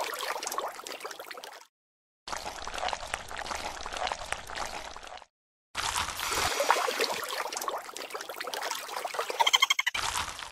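Splashing and trickling water sound effects for muddy water being stirred, in three stretches with abrupt short silences between them. A brief high chirp comes near the end.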